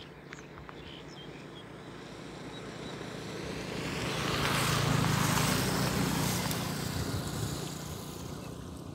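A motor vehicle passing by. Its engine hum and road noise grow to a peak about five seconds in, then fade away.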